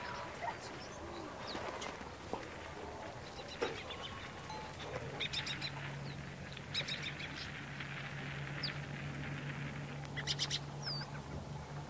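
Feathers being plucked from a wet chicken over a metal basin, with scattered clicks and rustles. Small birds chirp in the background, and a low steady hum comes in about five seconds in.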